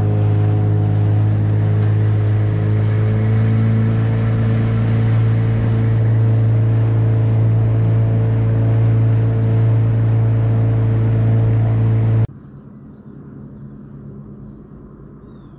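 Small boat's outboard motor running at a steady, high cruising speed: a loud, even drone with water rushing along the hull. It stops abruptly about twelve seconds in, leaving only faint, quiet lakeside background.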